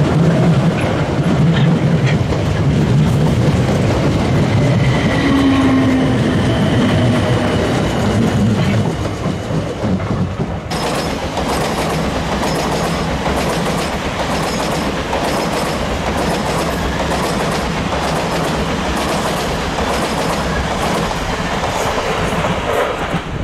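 South Western Railway electric multiple-unit trains passing: a close rumble from a passing carriage for about the first ten seconds, then, after an abrupt change, a second train running by with wheels clicking over the rail joints.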